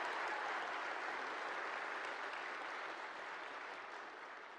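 A large crowd applauding, many hands clapping at once, slowly dying away toward the end.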